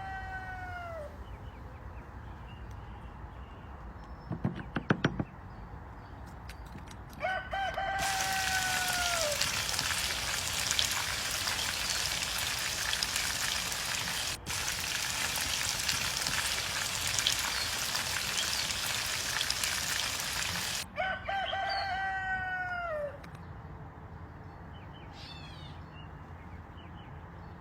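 Roosters crowing several times, each crow a long call that holds and then falls away. A loud, steady hiss switches on abruptly after the second crow and cuts off about thirteen seconds later, just before the third.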